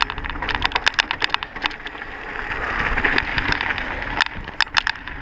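Mondraker mountain bike riding fast down a dirt trail: steady tyre noise on the dirt, with runs of sharp clicks and rattles from the bike as it hits bumps, one burst in the first two seconds and another about four seconds in.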